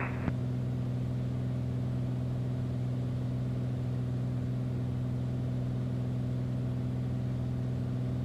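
Beechcraft Bonanza's six-cylinder piston engine and propeller running at a steady cruise setting, a constant low drone heard from inside the cabin.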